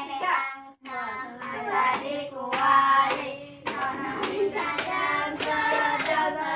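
A small group singing a song together, with sharp claps about twice a second keeping the beat: the song sung while the talking stick is passed around in a Talking Stick classroom game.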